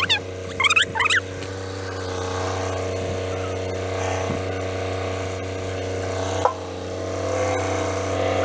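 An engine running steadily at an even speed, with a few short high-pitched calls in the first second.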